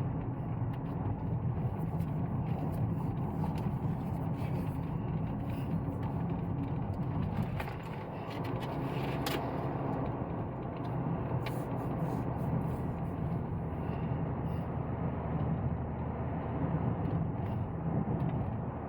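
Steady drone of a car's engine and tyres while driving, with scattered small knocks and clicks.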